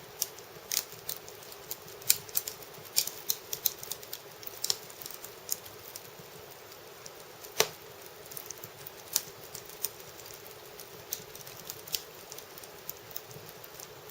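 Firewood burning in an irori sunken hearth, crackling with irregular sharp pops, a few of them louder, over a faint steady hum.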